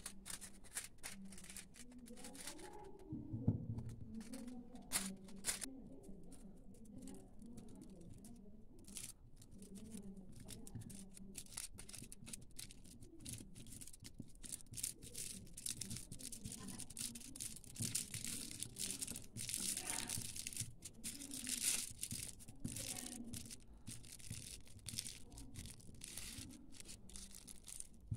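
Aluminium foil crinkling and rustling as it is folded and wrapped around the end of a coaxial cable, a run of irregular crackles that grows denser in the second half.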